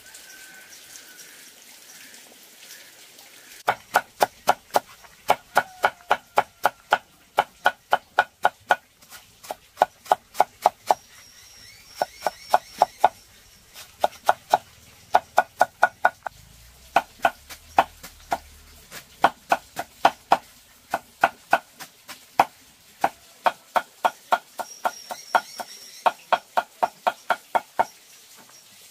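Knife or cleaver chopping on a wooden board in steady runs of about three strokes a second, each stroke a short sharp knock, with brief pauses between runs.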